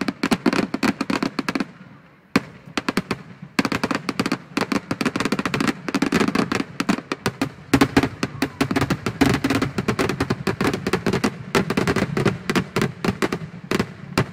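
Aerial fireworks bursting in rapid succession, a dense run of sharp cracks and bangs that lets up briefly about two seconds in.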